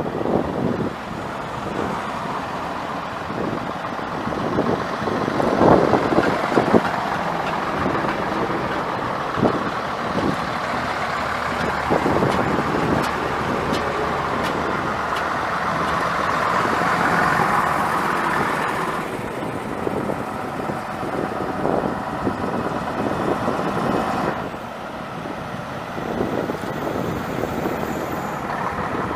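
Vintage double-decker buses driving along the road in procession, their engines running as they approach and pass close by one after another.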